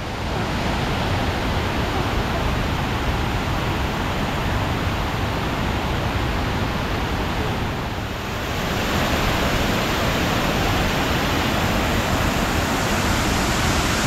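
Water pouring over the tiered limestone cascades of Kuang Si Falls, a steady rushing that grows a little louder about eight seconds in.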